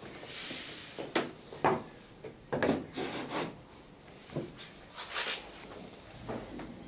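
A hand tool working the end of a wooden clinker-dinghy plank: a series of short scraping strokes and a few sharp wooden knocks as a tight spot on the plank is trimmed away.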